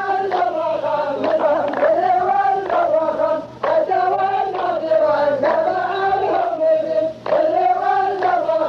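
Male chorus of qalta chanting a poet's verse in unison, a drawn-out melodic chant in repeated phrases, with handclaps on the beat about once a second.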